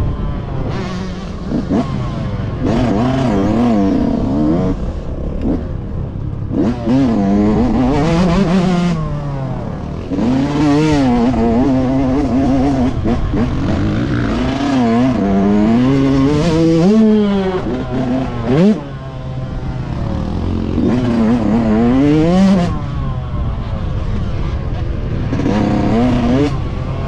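Yamaha YZ125 single-cylinder two-stroke motocross engine revving up and falling back over and over as it is ridden hard around a dirt track, heard from the rider's helmet over a rush of wind noise. The engine note briefly drops away about two-thirds of the way through.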